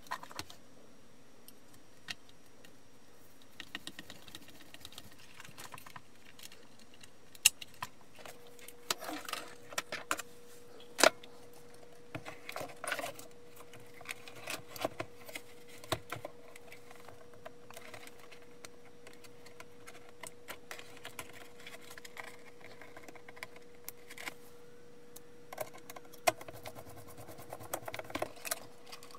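Scattered clicks, taps and light rattles of hands handling the rice cooker's plastic parts, wiring and connectors during reassembly, with a burst of screwdriver and handling clicks near the end. A faint steady tone comes in about eight seconds in.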